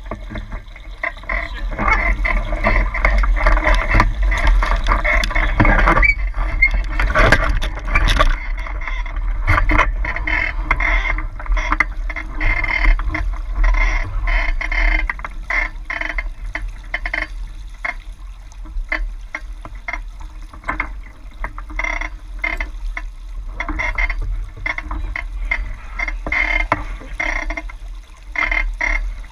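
Lake water splashing and slapping against a Hobie 16 catamaran's hull as it sails, in quick irregular splashes that are busiest in the first third, over a steady low rumble.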